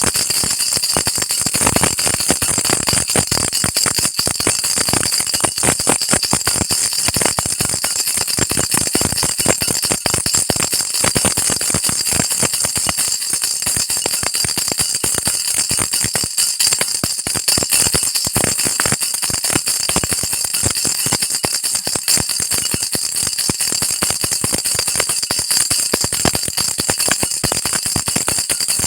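Baby rattle shaken without a break: a dense, steady stream of bright jingling clicks.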